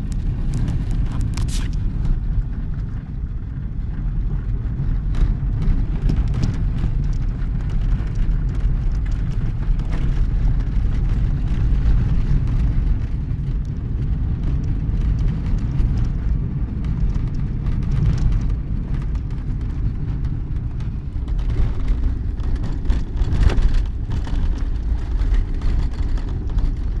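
Steady low rumble of a motor vehicle running, with scattered short knocks and rattles throughout.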